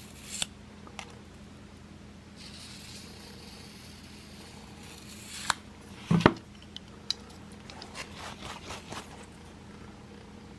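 Steel single-bevel broadhead in a roller sharpening guide being stroked across a fine-grit diamond plate. It gives a soft scraping hiss for about three seconds, sharp metal clicks, one heavier knock about six seconds in, then a quick run of short scrapes and ticks near the end. The sharpener judges this steel good and hard.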